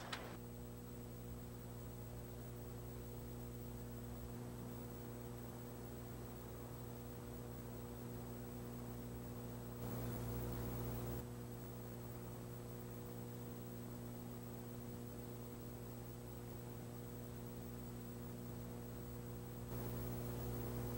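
Steady electrical mains hum with a faint hiss, the background noise of an old videotape recording. The noise steps up slightly about ten seconds in and again near the end.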